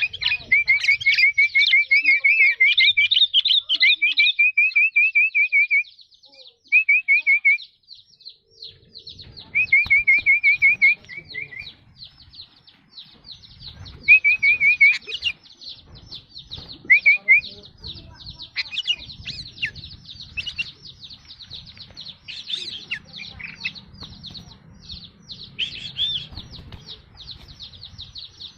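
Sooty-headed bulbul (kutilang) singing vigorously in rapid runs of repeated notes. A long run fills the first six seconds, then shorter bursts come every few seconds. A steady high twittering continues underneath.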